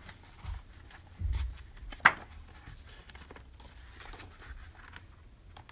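Paper pages of a hardcover diary being turned by hand, with faint rustling, a low bump a little over a second in, and one sharp click about two seconds in.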